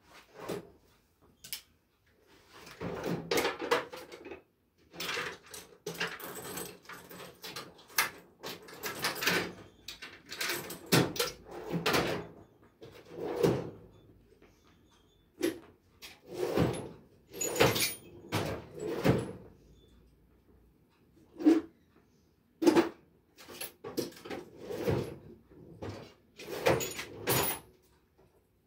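Irregular knocks, clatters and rustling from things being handled close to a covered microphone, with a few sharper hits in the second half.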